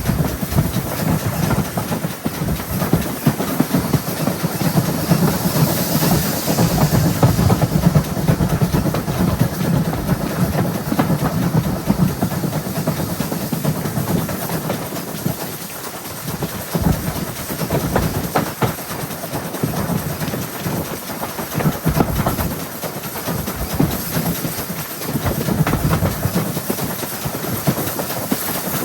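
GWR 5700-class pannier tank locomotive No. 7754 running under steam, heard on board, with a steady rumble, clatter of wheels on the rail joints and hissing steam. The hiss grows louder for a couple of seconds about six seconds in.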